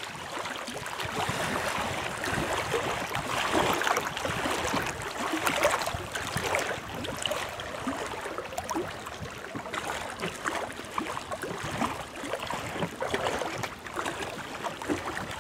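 Small wind-driven waves lapping and splashing against rocks at a lake shore, with a trickling, gurgling wash that swells and eases every few seconds.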